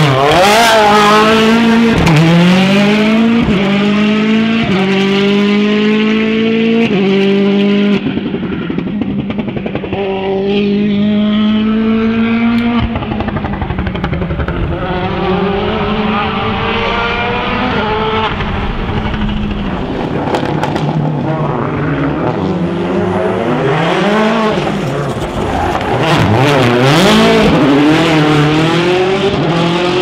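Rally car engines running hard on track, revving up and stepping down in pitch at each quick upshift through the gears, then holding on at steadier revs. Near the end the revs rise and fall quickly several times.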